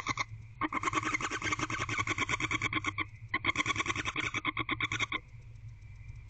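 Barn owl chittering: a rapid, evenly pulsed series of raspy notes in two bouts of about two seconds each, with a short break between them. These are the contented 'happy sounds' of a female barn owl with her mate and food.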